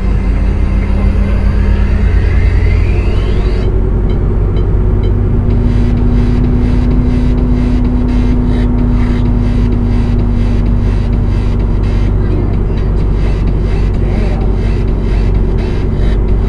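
Semi truck's diesel engine running at low speed with road rumble, heard from inside the cab: a steady low drone with a rising whine in the first few seconds.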